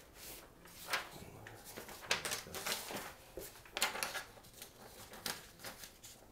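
Paper being fed into a Royal manual typewriter: rustling and irregular small clicks and knocks from the paper and platen, roughly once a second. The sheet fails to catch and feed, which the owner puts down to something wrong with the platen.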